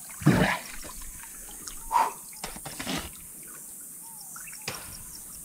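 Water splashing and dribbling in a shallow stream, with a few louder splashes and knocks, the loudest about half a second in and another about two seconds in.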